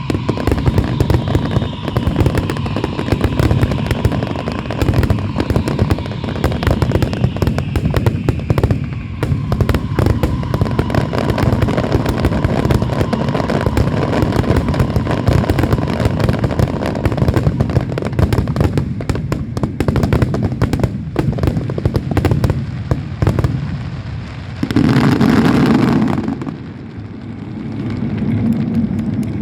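Aerial fireworks going off in a dense, rapid barrage of overlapping bangs and crackles, with some falling whistles early on. Near the end there is a louder rush lasting about a second, then the barrage thins out.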